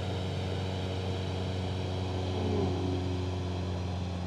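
Cessna 172's piston engine and propeller heard from inside the cockpit in flight: a steady, even drone.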